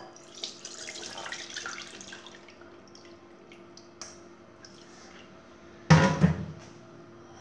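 Wet, soaked tamarind dropped into a stainless mesh strainer over a glass bowl, squelching and dripping for the first two seconds, then a few small clicks. About six seconds in comes one loud thump.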